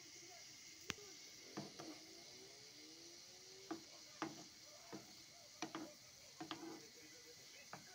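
Metal spoon knocking and scraping against a cast-iron frying pan as it stirs willow catkins about in shallow water: a scattering of faint, sharp taps at irregular intervals.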